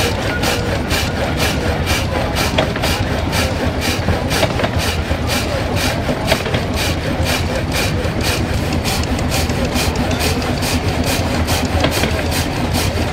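Belt-driven vertical frame saw cutting through a timber beam: a rasping stroke about three times a second. The stationary engine that drives it runs steadily underneath.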